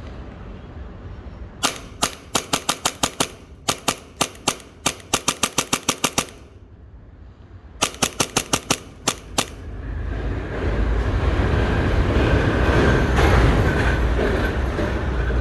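Action Army AAP-01 gas blowback airsoft pistol with a CNC upper fired in quick strings of sharp cracks, four strings of several shots each with short pauses between. After the last string a louder, steady rumbling noise takes over for the final few seconds.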